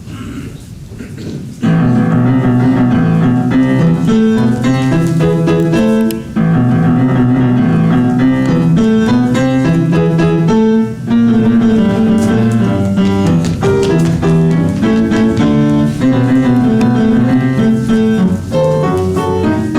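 Piano music with a repeating melody that starts abruptly about two seconds in, after a brief low rumble.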